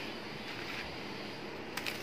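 Kitchen knife cutting through a crisp deep-fried kachori on a plastic cutting board: faint crunching of the brittle crust, with a couple of short sharp crackles near the end.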